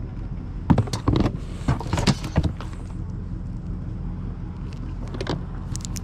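A steady low hum, with a cluster of sharp clicks and knocks from about a second in to halfway through and a few more near the end.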